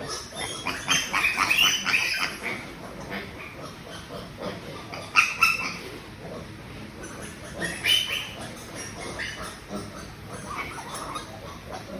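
Piglets squealing in short, high-pitched bursts. There is a cluster of cries a second or two in, a sharp loud one about five seconds in, and another near eight seconds, with quieter squeaks between.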